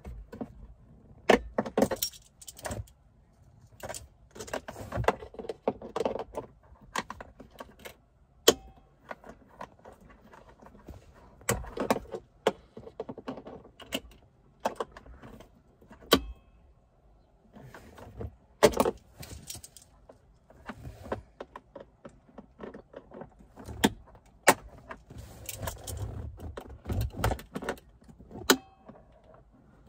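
Hand tools and plastic parts clicking, clinking and rattling in irregular bursts while working on the heater blower resistor and its wiring under a VW Transporter T5 dashboard. There is a scatter of sharp single clicks, the loudest about 1.5, 8.5, 19, 24.5 and 28.5 seconds in.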